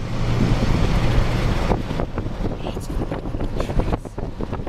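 Wind buffeting the microphone from a moving car, with the car's low road rumble underneath.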